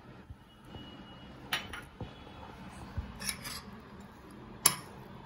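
Steel spoon stirring a chopped vegetable and chickpea salad in a ceramic bowl, scraping and clinking against the bowl with a few sharp clinks, the loudest near the end.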